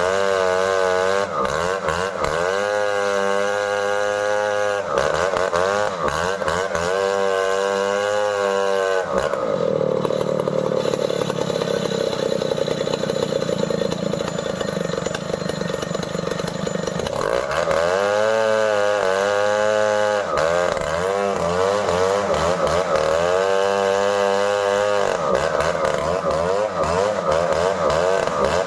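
Stihl 070 two-stroke chainsaw running at high revs while felling a merbau tree, its pitch wavering up and down. For several seconds in the middle the engine note drops lower and rougher.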